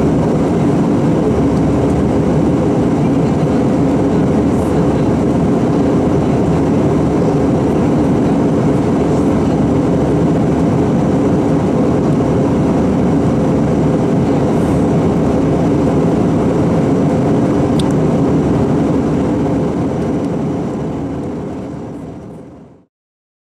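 Steady cabin drone of an Airbus A319 in flight, jet engine and airflow noise heard from a window seat, with a low hum running through it. It fades out over the last few seconds.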